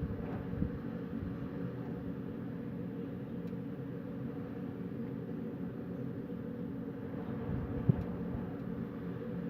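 Steady low wind noise at night with a faint steady hum in it, broken by two brief thumps: a light one about half a second in and a louder one near the end.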